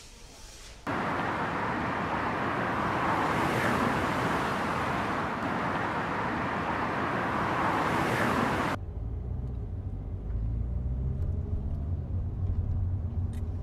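Semi-truck on the road: a steady rush of engine and tyre noise, then, about nine seconds in, a switch to the low engine drone heard inside the truck's cab.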